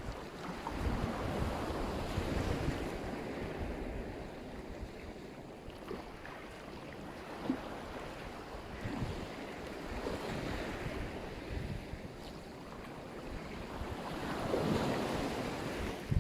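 Black Sea surf: waves breaking and washing in, swelling about a second in and again near the end. Wind buffets the microphone with low gusty rumbles.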